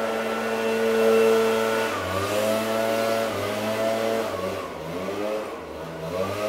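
An engine running, its pitch steady for about two seconds and then dropping and climbing again several times.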